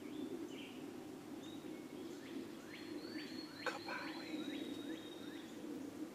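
Woodland birdsong: a songbird sings a quick run of short falling notes over a steady low background hum, with a single sharp click about halfway through.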